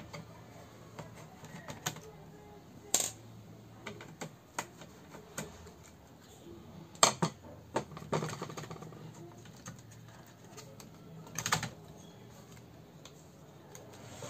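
Scattered small clicks and light knocks of a screwdriver unfastening screws and of a circuit board being handled in an open LCD TV's metal chassis, with sharper knocks about 3, 7 and 11 seconds in.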